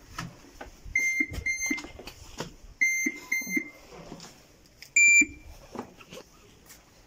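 Electronic card reader at a Tube station gate beeping as cards are touched on it: two pairs of short, even beeps, then one louder, slightly higher beep about five seconds in. Footsteps and knocks are heard around the beeps.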